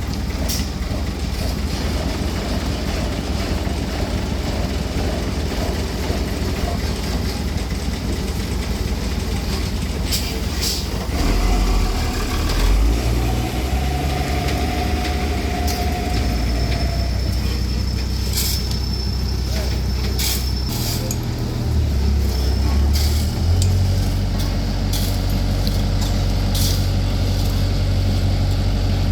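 Heavy road construction machinery running: a steady low engine drone that rises in pitch twice, with scattered sharp clanks.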